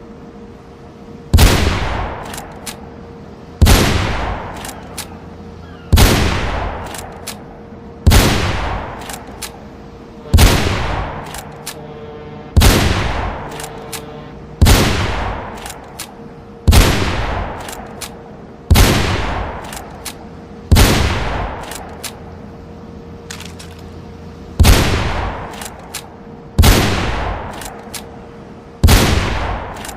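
Barrett M95 .50 BMG bolt-action rifle firing single shots, fourteen of them about two seconds apart, each with a long echoing tail followed by a few faint clicks. A faint steady hum runs underneath.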